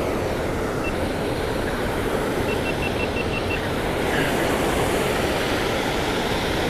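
Steady rush of river water pouring over a low concrete dam, with a brief run of about six faint, evenly spaced high ticks about two and a half seconds in.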